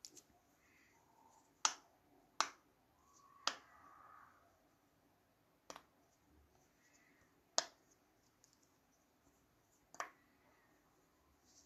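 Silicone pop-it fidget toy having its bubbles pressed through one at a time by a finger, each giving a short sharp pop. About seven pops at uneven intervals.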